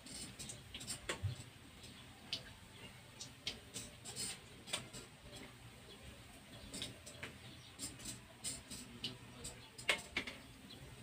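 Hot oil crackling and popping around sesame-coated binangkal dough balls deep-frying in a pan, as irregular faint ticks several times a second. A few sharper clicks stand out, the loudest near the end, as a metal utensil touches the pan.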